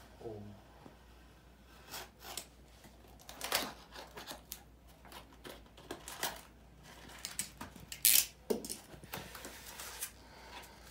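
Yellow utility knife cutting through the tape and cardboard of a mailer package, in short scraping and rasping strokes, with rustling as the package is turned in the hands. The loudest cut comes about eight seconds in.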